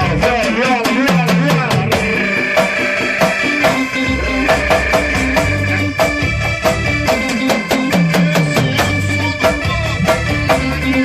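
Live band playing an instrumental passage: a drum kit keeps a busy, steady beat under a repeating bass line and held keyboard or horn chords, with no singing.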